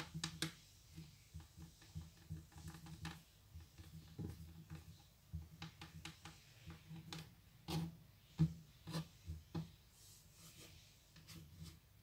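Fingers rolling thin strands of play dough on a wooden tabletop: faint rubbing and scratching of skin on wood with irregular soft taps, a few louder taps a little past the middle.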